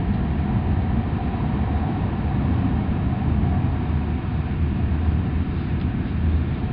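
Steady low rumble of an E6 series Shinkansen running at speed, heard inside the passenger car.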